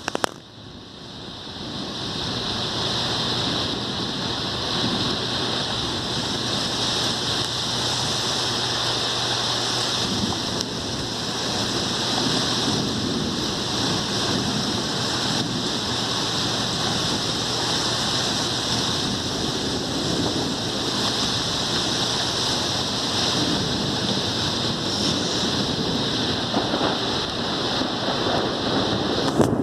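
Rain falling steadily, a constant hiss that swells up over the first couple of seconds and then holds.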